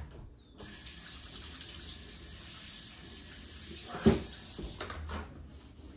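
Kitchen tap running in a steady hiss for about three and a half seconds, then a single sharp knock just after it stops.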